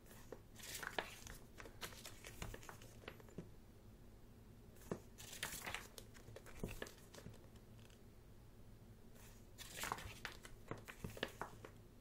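Paper pages of a thick photobook being turned, three rustling page turns with small taps and slides of the paper, about four seconds apart.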